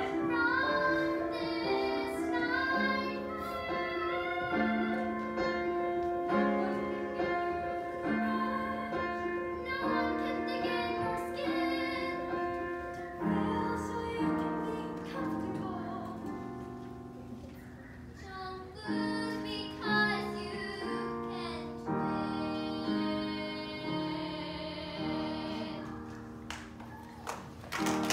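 A child singing a song with piano accompaniment.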